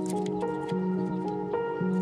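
Background music, sustained notes that change about every half second.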